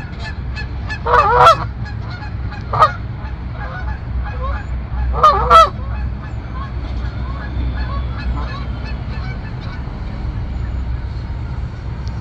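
Canada geese honking: a few loud honks in pairs and singles in the first six seconds, then fainter, scattered calls. A steady low rumble runs underneath.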